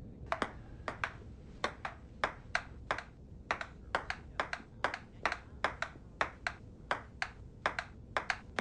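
Table-tennis rally: the ball clicks in quick succession off the paddles and the table, about three to four clicks a second without a break.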